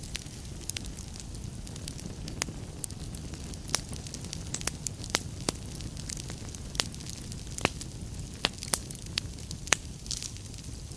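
Wood fire burning in a fireplace, with a steady low rumble of flame and frequent irregular sharp crackles and pops from the burning wood.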